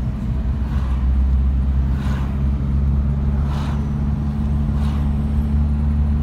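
Steady low engine and road drone of a car driving, heard from inside the cabin.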